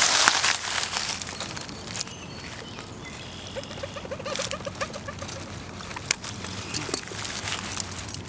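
Rustling and scattered cracks of twigs and leaves underfoot on a woodland walk, loudest at the very start. A few seconds in, a bird or small animal calls a quick run of about a dozen short, evenly spaced notes lasting about a second and a half.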